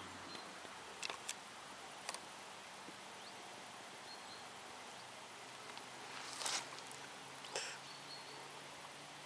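Faint outdoor field ambience: a steady low hiss with a few scattered short clicks and brief faint high chirps.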